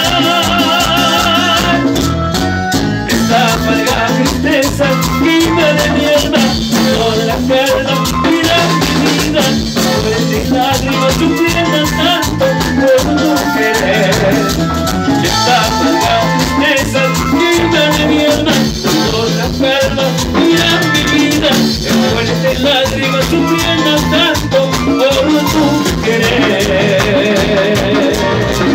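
Live Latin tropical dance band playing, with drum kit and timbales, electric bass and keyboard keeping a steady dance beat. The singers' voices are heard briefly at the start, then the band plays an instrumental stretch, and the voices come back in near the end.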